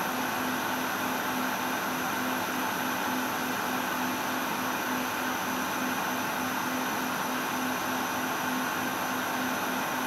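Industrial machine running steadily: an even mechanical noise with a low hum that pulses in a fast, regular rhythm.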